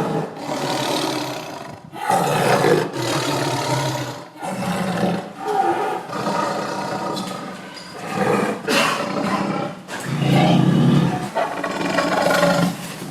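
Tiger roaring, a series of loud, rough roars one after another, each about one to two seconds long, with abrupt cuts between some of them.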